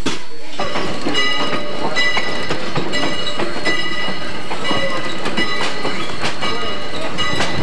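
Passenger coach of a heritage steam train rolling along, its wheels clicking over the rail joints at irregular intervals, with a steady high-pitched ring held over it throughout.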